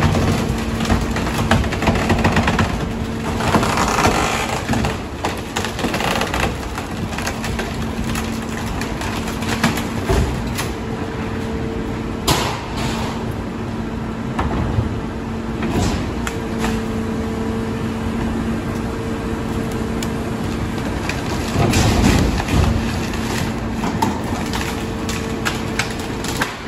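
Mack rear-loader garbage truck running with a steady hum while demolition debris is thrown into its Leach hopper and packed. Wood planks, boxes and bags clatter, knock and crack as they land and are crushed, with several louder bursts of clatter through the stretch.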